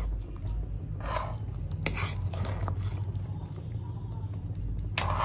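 A metal spatula stirring thick chicken curry in a pan: a few short scraping strokes against the pan and a light clink, over a steady low hum.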